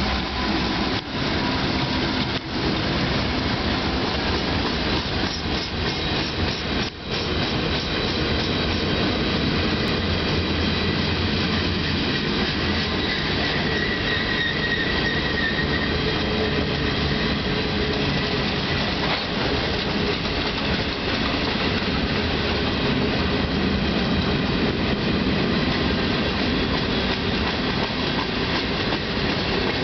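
A freight train of stone hopper cars rolling past close by: a steady, continuous rumble of steel wheels on rail. A high wheel squeal rises briefly about halfway through.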